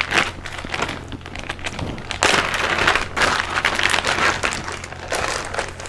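Clear plastic zip-lock bag crinkling and rustling as it is handled and opened, in uneven spells with small crackles, busiest from about two seconds in.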